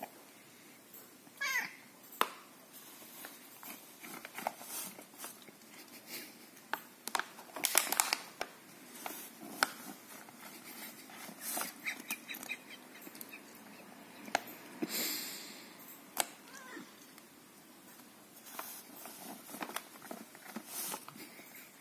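A cat meows once, about a second and a half in, then gives a fainter short call later. Throughout, a plastic cat treat pouch crinkles and rustles in sharp clicks and scrapes as the cat pushes its head inside it after the treats.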